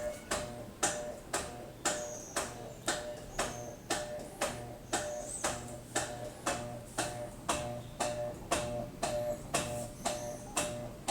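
Brastemp washing machine making a fault noise: a steady, even ticking of sharp clicks, about two a second, each with a short metallic ring.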